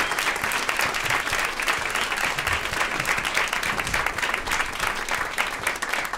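An audience applauding steadily, many hands clapping together.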